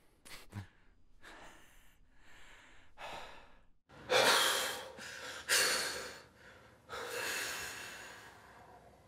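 Heavy breathing: a series of rushing breaths and sighs, soft at first, then three loud gasping breaths about four, five and a half, and seven seconds in, the last one trailing off.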